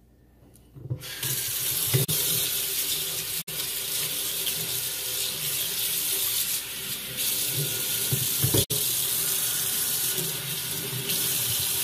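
Kitchen tap running water into a sink, turned on about a second in and running steadily.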